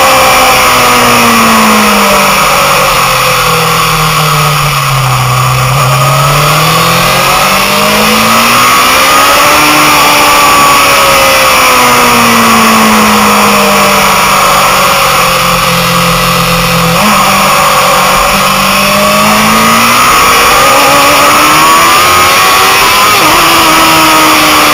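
Motorcycle engine heard from onboard at track speed, its pitch falling off into corners and climbing again under acceleration several times, over a steady rush of wind noise. About two-thirds through the pitch jumps up suddenly and near the end it drops suddenly, gear changes.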